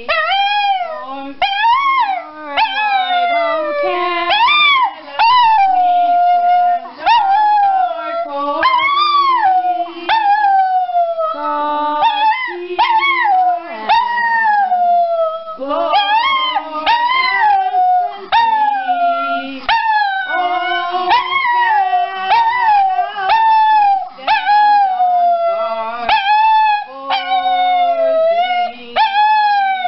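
Schnauzer howling in long wails that rise and fall, one after another with short breaths between, over a lower, steadier tune of held notes.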